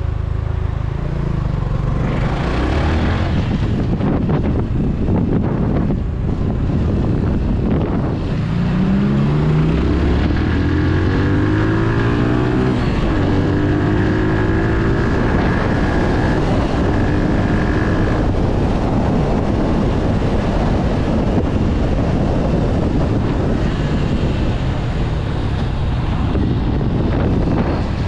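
Motorcycle engine running on the road, its pitch rising in several steps between about eight and sixteen seconds in as it accelerates through the gears. Heavy wind noise on the microphone throughout.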